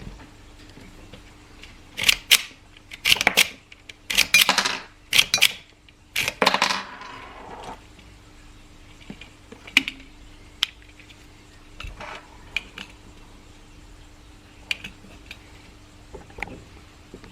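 Metallic clicks and clacks from handling a 1:2 scale miniature M4A1/AR15 replica. There is a cluster of sharp clacks about two to seven seconds in, the last one ringing briefly, then scattered lighter clicks.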